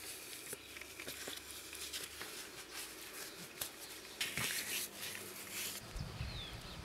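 Quiet ambient sound with faint rustling and scattered small clicks and ticks.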